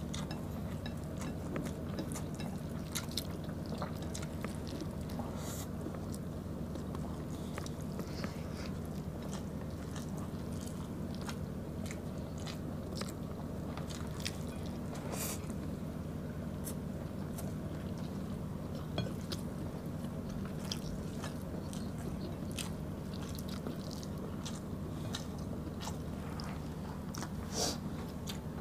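Close-miked chewing and mouth sounds from people eating beef stew and rice by hand: scattered small wet clicks and smacks over a steady low hum.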